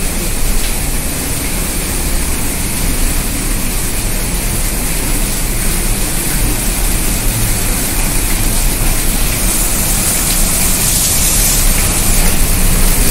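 Water pouring down the rock into a pool inside a narrow cave gorge: a steady rushing and splashing, growing a little louder near the end.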